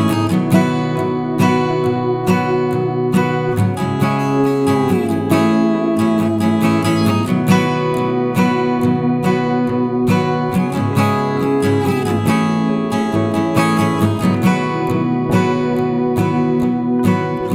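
Background music: an acoustic guitar strummed and picked in a steady rhythm, with a few sliding notes.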